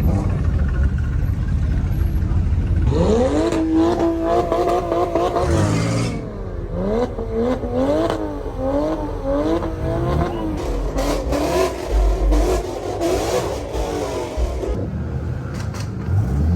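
A car engine being revved hard. About three seconds in it climbs fast and holds high for a couple of seconds, then drops. It is then blipped up and down about once a second, with a series of sharp cracks later on.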